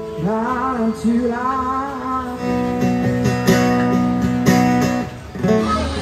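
A man singing live while playing an acoustic guitar: sung phrases for about the first two seconds, then strummed guitar chords ringing on. The music breaks off shortly before the end, giving way to crowd chatter.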